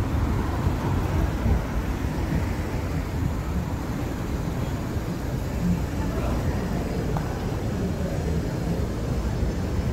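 City street ambience: a steady low rumble of traffic, with faint voices in the background.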